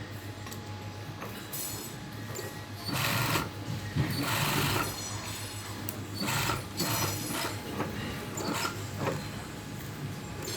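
Sewing machine stitching a synthetic-fibre wig in short runs, starting and stopping several times over a steady low hum.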